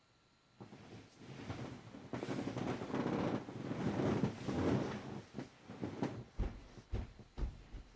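A sleeping dog snoring: a long, rattling snore that starts about half a second in and swells. It then breaks into shorter, choppier rattles with a few low thumps near the end.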